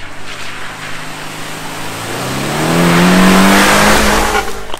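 Subaru Forester's flat-four boxer engine revving as the SUV drives up and passes close by. Its note rises in pitch and grows louder from about halfway through, loudest near the end.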